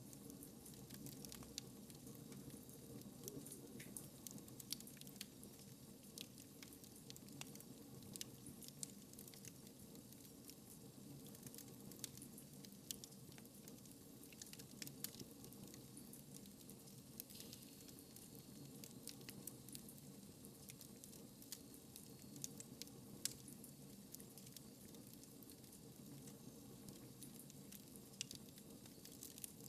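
Wood fire in a fireplace crackling quietly: irregular sharp pops and snaps over a low steady rumble.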